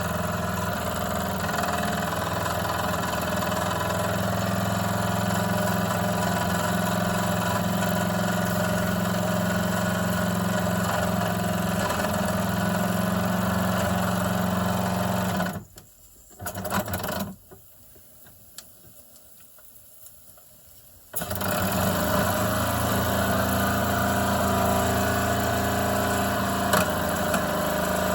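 A Mamod SP5 model live-steam stationary engine running steadily under steam. The sound drops away almost completely for about five seconds past the middle, with a brief return, then the engine is heard running again.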